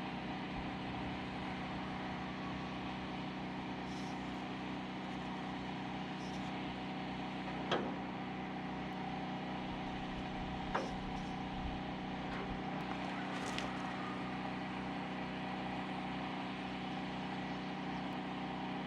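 Tractor engine idling steadily, with a couple of light knocks about eight and eleven seconds in.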